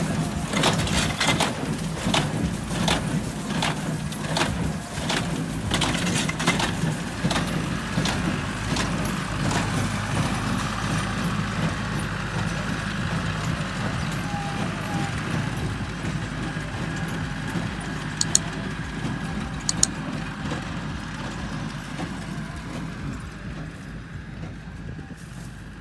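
John Deere 5310 tractor engine running steadily while pulling a New Holland square baler, with the baler knocking rhythmically about twice a second. The knocking fades after about ten seconds and the whole sound slowly grows fainter toward the end, with two sharp clicks in between.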